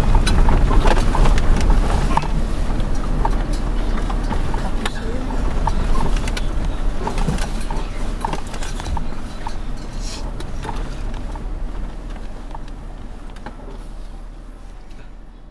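Wind buffeting the microphone as a steady low rumble, with scattered drops or taps clicking through it, fading out steadily toward the end.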